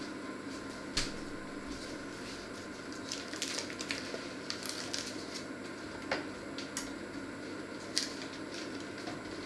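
A crinkly snack packet handled and rustled, with crackles bunched in the middle and a few sharp clicks, over a steady low hum.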